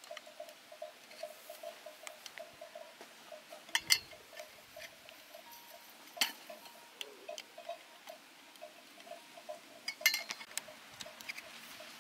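Metal poles clinking and knocking as they are drawn out of a backpack and handled, with sharp clinks about four, six and ten seconds in. Under them, a steady rapid ticking runs, about four or five beats a second.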